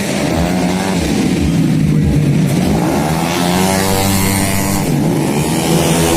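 Tuned racing automatic scooters' engines at high revs, several bikes going by one after another with the pitch sweeping up and then down as each passes.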